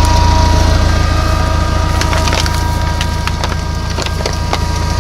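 BigBo all-terrain vehicle's engine running with a steady low drone and whine while the vehicle pushes through trees. From about two seconds in, branches crack and snap repeatedly against the body.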